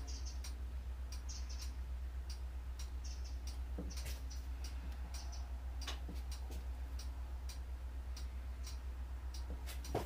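Quiet room tone: a steady low hum with a few faint, scattered clicks and ticks.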